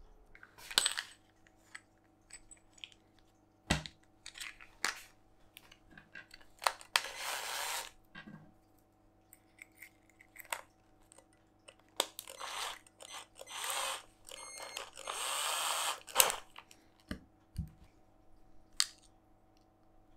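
Hand work on a guitar at the bench: scattered clicks and knocks with several short scraping or rubbing strokes, the longest about a second, and a brief rattle, over a faint steady low hum.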